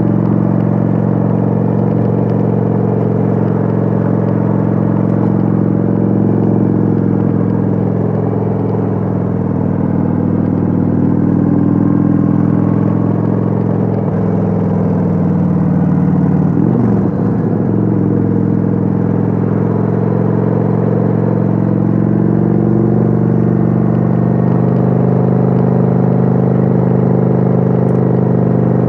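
Kawasaki Vulcan 900's V-twin engine running steadily under way, heard from on board the motorcycle. About seventeen seconds in, its pitch briefly dips and comes back up.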